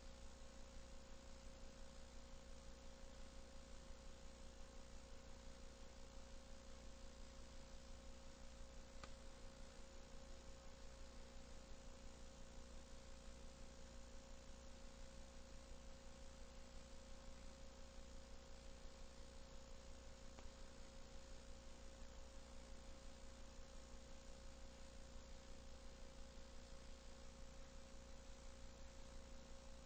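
Near silence: a steady low electrical hum and hiss from the videotape transfer, with no game sounds and one faint click about nine seconds in.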